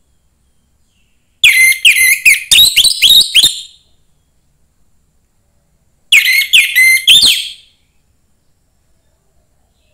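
Young wild orange-headed thrush singing: two loud phrases of rapid, sharply sweeping whistled notes, the first about a second and a half in and the second at about six seconds, with silence between.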